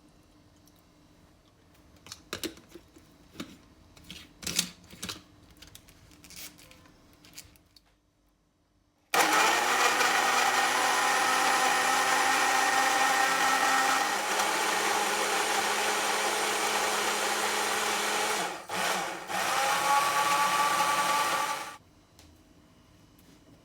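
Small electric kitchen appliance motor switched on with a sudden start and run for about twelve seconds. Its pitch drops slightly partway through, it cuts out and restarts twice in quick succession near the end, and then it stops. Before it starts there are light clicks and knocks of handling.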